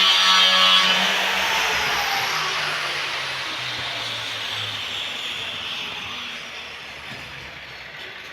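A loud pitched machine sound: a motor or engine running, then dropping in pitch about a second in and fading away steadily, as when it winds down or moves off.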